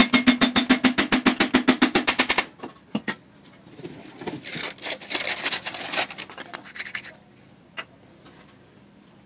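Fast, evenly plucked guitar music for about the first two and a half seconds, then it cuts off. After that comes irregular metal scraping with a few knocks as a cylinder liner is pushed down into its bore in an Isuzu 4JG2 diesel block. The scraping dies away about two seconds before the end.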